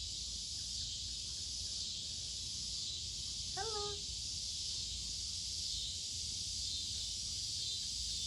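Steady high-pitched drone of insects, with one short rising call about three and a half seconds in.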